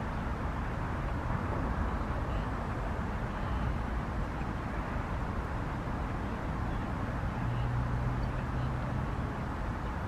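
Steady low outdoor rumble with no bird calls heard; a low steady hum joins in from about six and a half to nine seconds.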